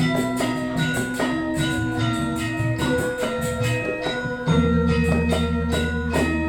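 Balinese gamelan ensemble playing: bronze metallophones struck in fast interlocking patterns, with cymbal-like jingling. A deep, held low note comes in about four and a half seconds in.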